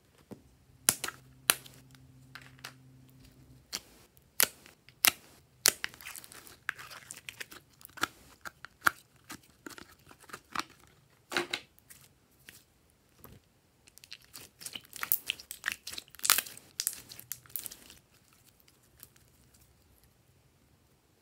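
Pink slime being peeled and pulled out of a plastic tub: a run of sharp sticky crackles and pops with the crinkle of the thin plastic cup, densest near the end, then stopping a few seconds before the end.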